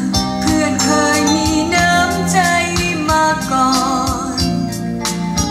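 A song played from a vinyl LP on a Thorens TD 295 MK 4 turntable, heard through loudspeakers: a singer holding notes with vibrato over instruments and steady percussion.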